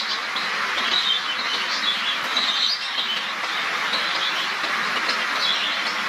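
A flock of caged Java sparrows chirping, short calls coming in clusters every second or so over a steady hiss.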